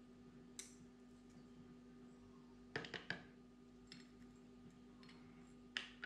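A handful of faint, short clicks as small steel ball bearings are picked out of a bicycle pedal's cup-and-cone bearing with tweezers and dropped into a cup of degreaser, over a steady low hum.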